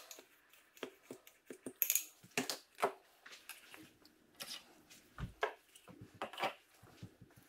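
Lab glassware and tools being handled: irregular light clicks, taps and short scrapes, with one dull low thump about five seconds in.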